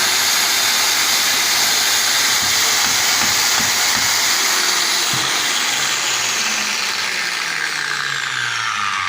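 Freshly repaired Hilti electric power tool switched on for its test run, its motor running at full speed with a loud, steady whine. Near the end the pitch starts to fall as it begins to wind down.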